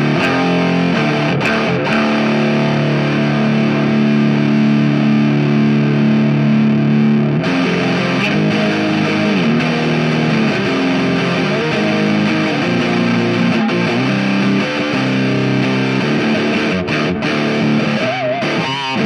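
Electric guitar through a Boss OS-2 overdrive/distortion pedal, set toward its distortion side, into a Soldano SLO 30W Mini tube amp head, playing heavily distorted chords. A long held chord rings through the first part, then shorter changing chords and single notes follow.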